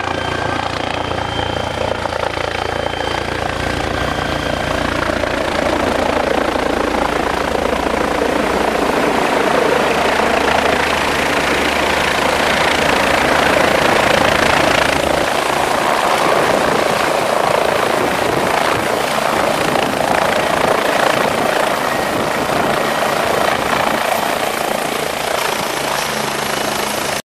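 Messerschmitt-Bölkow-Blohm Bo-105LS helicopter coming in to land: main rotor beat with the whine of its twin turbine engines, loudest during the low hover about halfway through, then easing as it settles onto its skids with the rotor still turning.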